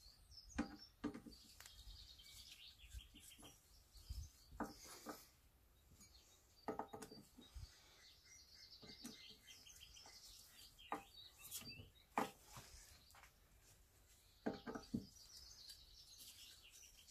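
Screwdriver driving screws back into the gearbox head of a Stihl HT 75 pole pruner: scattered faint metal clicks and ticks in near silence, with faint high chirps now and then.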